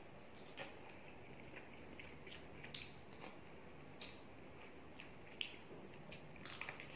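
Close-miked wet eating sounds of rice and chicken curry being eaten by hand: chewing with irregular short lip smacks and squelches, a dozen or so scattered clicks.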